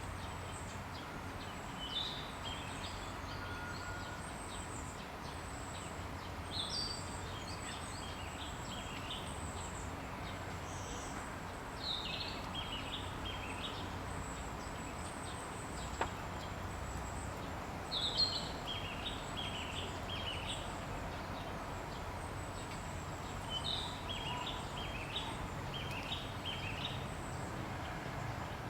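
A bird singing a short phrase of several quick notes, repeated every five or six seconds, with thin high-pitched calls in between, over steady outdoor background noise.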